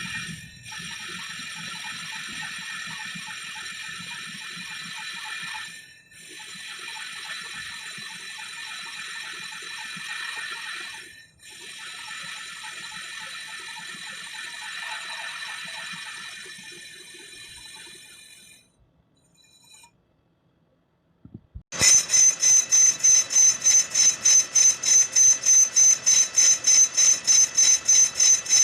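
A machine-shop power tool working on metal brake shoes, running with a steady high-pitched whine with two brief breaks, then fading out. After a moment's quiet, a louder rhythmic pulsing starts, about four or five beats a second.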